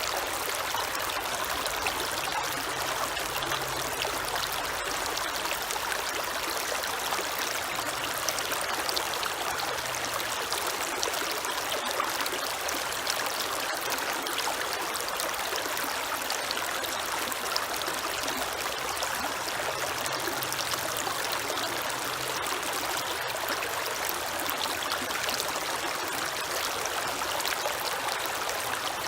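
Creek water running and trickling steadily over stones, a continuous splashing rush with many small droplet ticks.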